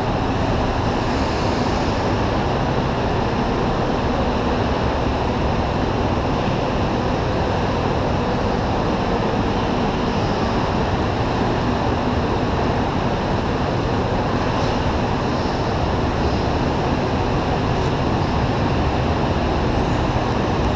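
Steady, loud, echoing noise of an indoor go-kart track hall, with kart engines and hall machinery blending into one even din.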